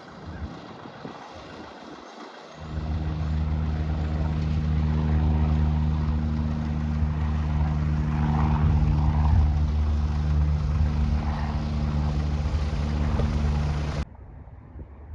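Piston engine of a small propeller airplane running close by: a steady, deep drone that starts about two and a half seconds in and cuts off abruptly near the end.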